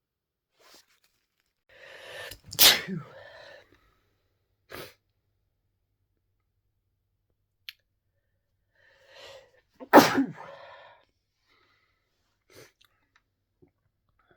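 A person sneezing twice from a head cold, the sneezes about seven seconds apart. Each one is a short drawn-in breath that ends in a loud, sharp burst.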